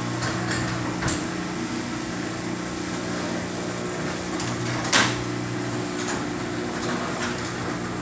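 Amarr sectional garage door being raised by its electric opener: a steady motor hum with a sharp clunk about a second in and a louder one about five seconds in.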